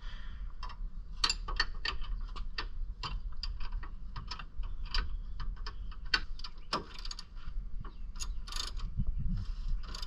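Ratchet wrench clicking in quick, uneven strokes as the nut on a UTV's lower rear shock bolt is unscrewed.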